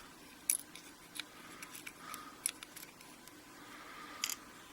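A few faint, light clicks and ticks, the clearest about half a second in and a little after four seconds: small lock pins and springs being picked out and set down while a disassembled pin-tumbler padlock is sorted.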